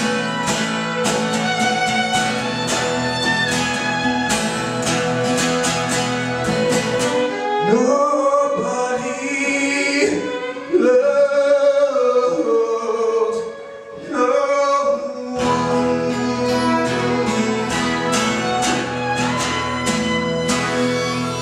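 Live acoustic duo: a strummed acoustic guitar and a violin accompanying a man's singing. The guitar strumming drops out for several seconds in the middle while the violin and voice carry on, then comes back.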